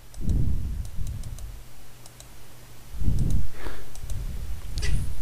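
Light clicks of a computer mouse and keyboard, with a couple of low thumps, one just after the start and one about three seconds in, over a steady low hum.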